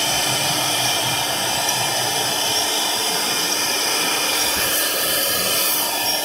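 4.5 kW HQD spindle of a 1525 CNC router running at high speed while its bit carves a relief into a wood board: a steady high whine over a continuous cutting hiss.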